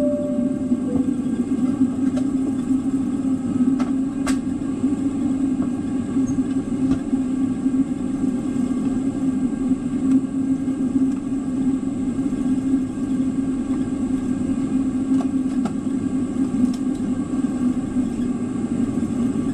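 Steady hum of a Boeing 777-300's cabin on the ground, engines and air systems running evenly. A two-note falling chime sounds in the first second, and a single sharp click comes about four seconds in.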